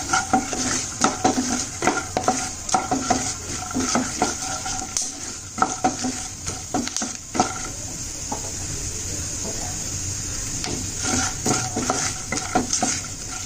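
A spatula stirring and scraping in a pan of dry-roasting peanuts, cumin and fenugreek seeds: quick clinks and scrapes with the seeds rattling, over a steady hiss from the hot pan. The stirring eases off for a few seconds after the middle, then picks up again near the end.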